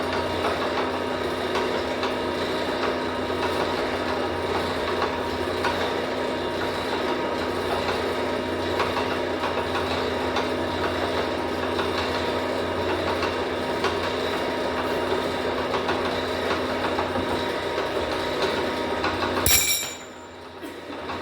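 A machine running steadily with a constant hum and a busy rattling texture, stopping abruptly with a sharp click near the end.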